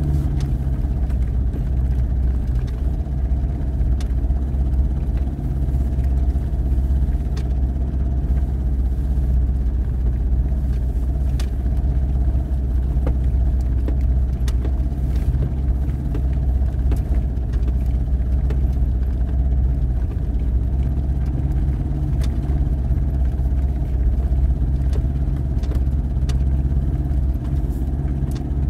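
Off-road 4x4's engine running steadily at low speed as it crawls along a rough dirt track, with scattered light clicks and knocks.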